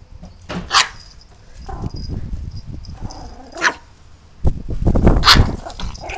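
Yorkshire terrier barking three times in sharp, high yaps, about a second in, a little past the middle and near the end, over a low rumbling noise that is heaviest under the last bark.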